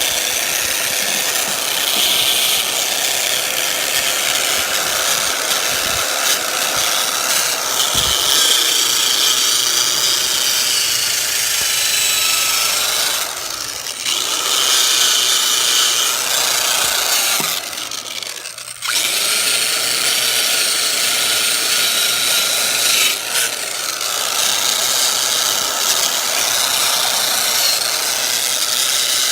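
Electric power sander running against a mini bike's painted metal frame, sanding off the old paint. Its motor tone sags and recovers as it is pressed into the work, and it eases off briefly twice near the middle.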